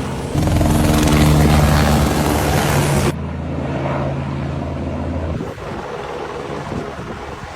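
Helicopter engine and rotor running, a steady low hum under a broad rushing noise. The sound changes abruptly about half a second in and again about three seconds in, and the low hum drops out a little past five seconds.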